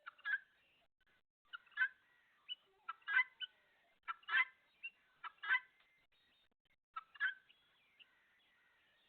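Domestic poultry calling: a string of short, sharp calls, often in quick pairs, about once a second.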